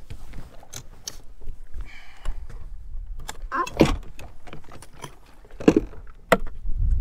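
Light clicking and clinking of a baitcasting rod and reel being handled and cast from a boat's deck, with two short sweeps that fall in pitch about halfway through.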